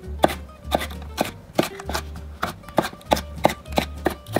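Chef's knife chopping bell pepper on an end-grain wooden cutting board: steady, even strokes, about three a second, the blade tapping the wood each time.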